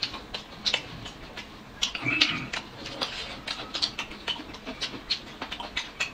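Close-miked eating sounds of people chewing pancake and dumplings: chewing and lip-smacking heard as many short, irregular clicks.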